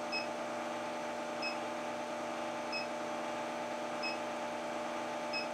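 LH-15a induction heater running steadily while heating a cold 3/4-inch steel bar in a five-loop copper coil, giving a steady electrical hum. A short high beep repeats evenly, a little over a second apart.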